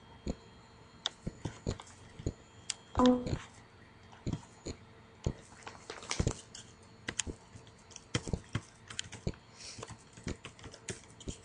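Computer keyboard typing and mouse clicks, a scattered run of short clicks. One short pitched sound comes about three seconds in.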